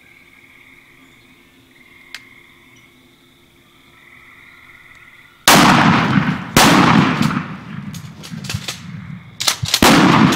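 Shotguns fired at two jake turkeys: two loud blasts about a second apart a little past halfway, then further blasts near the end, with smaller sharp knocks between them.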